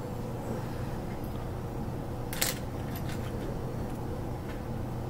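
Plastic Lego pieces clicking as they are handled and pressed together: a few faint clicks, the sharpest about two and a half seconds in, over a steady low hum.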